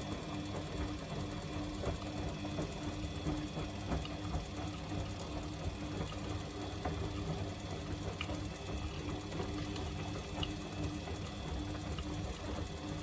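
Samsung washing machine running a wash cycle: a steady motor hum with a low tone that pulses a few times a second, and faint scattered ticks.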